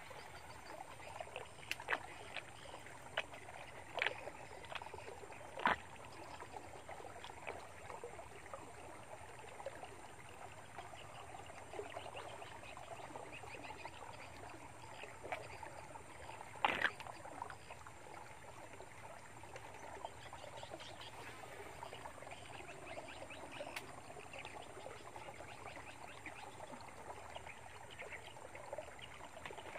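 Fishing rod and reel being worked while a casting lure is retrieved: a faint steady winding and rustling noise with a handful of sharp clicks and knocks, the loudest about seventeen seconds in.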